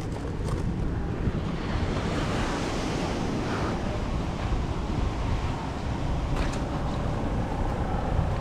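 Ocean surf washing on a beach with wind buffeting the microphone, the wash of a wave swelling about two to four seconds in.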